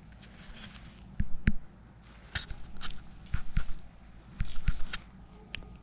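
Footsteps walking through a barn: irregular steps and crunchy knocks underfoot, some sharper than others.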